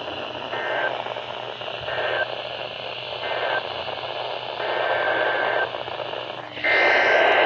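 Weather radio receiver hiss and static between broadcasts, with a faint steady tone fading in and out several times. It swells louder near the end and cuts off suddenly.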